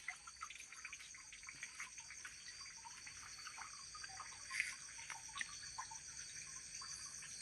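Faint insects chirring in a steady high trill, with scattered small drips of rainwater.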